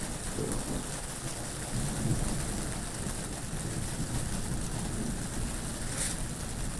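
Steady rain with wind and a low, shifting rumble underneath. There is a brief louder hiss about six seconds in.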